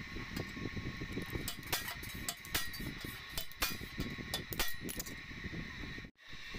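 Irregular metal taps and clinks of a hammer working on a steel bucket's wall while a handle lug is being fitted, several sharp knocks spaced unevenly.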